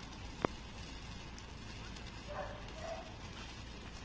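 A red sparkler burning with a faint, steady hiss, broken by one sharp click about half a second in. Two short barks come around two and a half seconds in.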